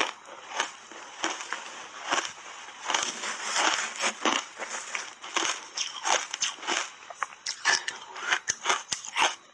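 Close-up crunching and chewing of mouthfuls of shaved ice coated in matcha powder, a fast, irregular run of sharp cracks. Partway through, a spoon digs into the ice in the tray.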